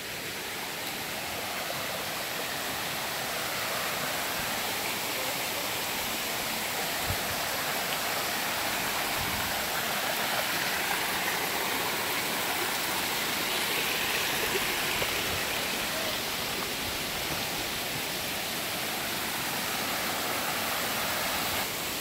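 Shallow stream running over rocks in small cascades: a steady rush of water, swelling slightly midway.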